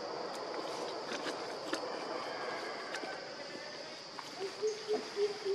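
Insects drone steadily, a high even hum, in forest surroundings. Shortly before the end a low call starts, repeated quickly at about three notes a second.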